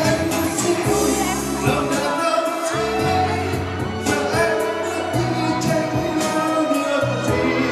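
A man singing a Vietnamese song into a microphone over instrumental backing with a steady beat.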